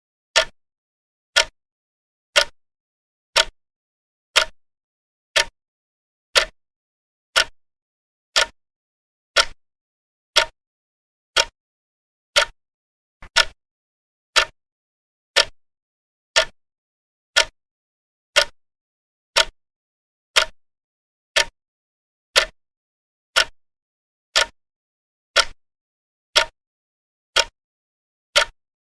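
Clock ticking slowly and evenly: one sharp tick about every second, with silence between ticks.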